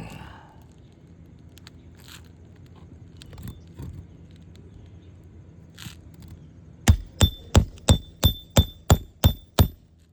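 Hammer striking a roof snake, the metal tool for driving a nail under an asphalt shingle: a fast run of about nine sharp metallic blows, roughly three a second, each with a short ring, starting about seven seconds in after a few faint taps.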